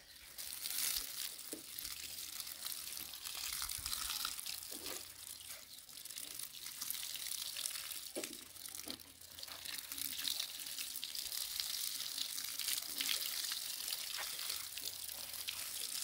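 Water spraying and splashing onto potted plants and soil as they are watered: a continuous hiss that swells and eases.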